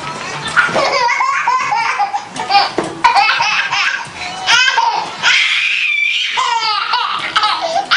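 A baby laughing in repeated high-pitched bursts of giggles and squeals, with one longer squeal about five seconds in.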